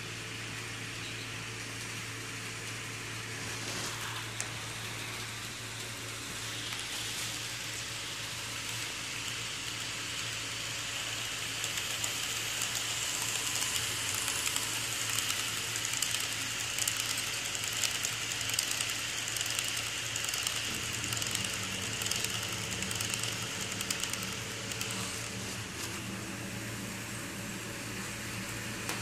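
HO-scale model freight train running on its track: a small electric motor's hiss and the light, rapid clicking of wheels over rail joints, growing louder for several seconds in the middle as the cars pass close by, over a steady low electrical hum.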